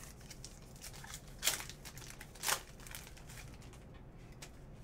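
Stack of 2019 Diamond Kings baseball cards handled and flipped through by hand, card stock sliding and rustling, with two sharper rustles about a second apart near the middle.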